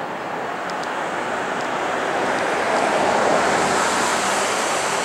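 Airbus A330-200 jet engines during the landing roll: a broad, steady rushing noise that swells to its loudest about three seconds in, as when reverse thrust is applied after touchdown.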